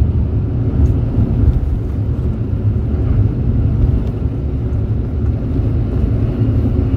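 Steady low rumble inside the passenger cabin of a Mercedes-Benz O-500RSD double-decker coach on the move: engine drone mixed with road noise.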